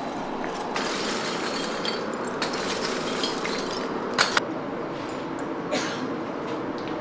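Lumps of charcoal clinking against each other and against iron tongs as the forge fire is stirred, with two sharp clinks close together about four seconds in. A steady rushing noise runs underneath.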